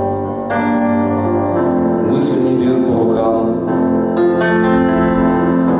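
Yamaha digital keyboard played with a piano tone, slow sustained chords changing every second or two.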